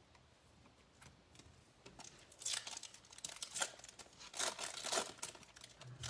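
A 2019 Bowman Platinum baseball card pack's wrapper being torn open and crinkled, in several short rips from about two seconds in to about five seconds in.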